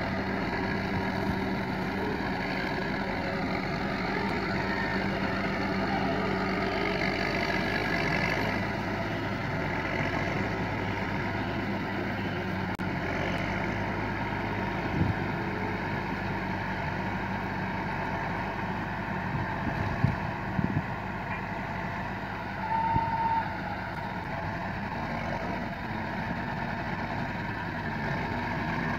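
A motor running steadily with a low hum, with a few sharp knocks past the middle and a short high beep late on.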